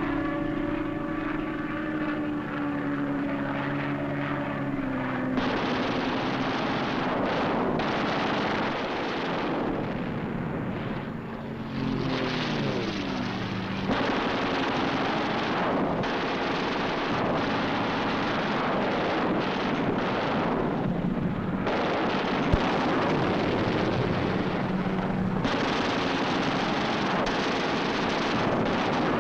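Piston-engined fighter aircraft running on a film soundtrack. For the first five seconds or so a droning engine note sinks slightly in pitch. After that comes a harsher rushing roar that cuts in and out abruptly several times, with a short falling whine about twelve seconds in.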